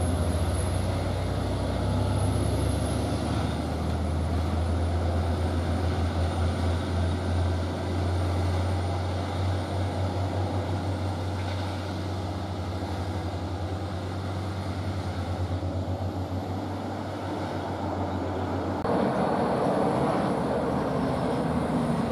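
Diesel engines of heavily loaded FAW JH6 tractor-trailers pulling slowly through a bend, a steady low drone with a throbbing beat. Near the end it gives way to a different, broader traffic noise.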